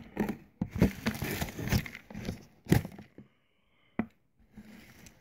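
Handling noises from a plastic container and a wire-mesh lid: irregular rustling, scraping and sharp knocks, densest over the first three seconds, then a single click about four seconds in.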